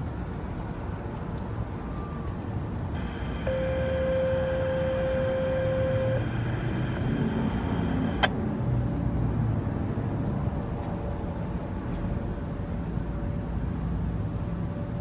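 Steady outdoor city background noise, with a chord of steady electronic tones lasting about five seconds from roughly three seconds in, cut off by a sharp click; a faint steady tone returns near the end.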